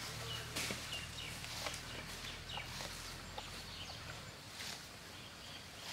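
Elephant feeding on dry grass: scattered faint rustling and crunching, with a few faint bird chirps behind it.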